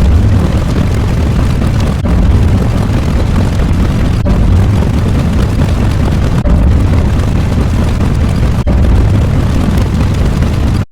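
A loud, continuous low rumbling sound effect, like an explosion or engine roar. It cuts out and restarts about every two seconds.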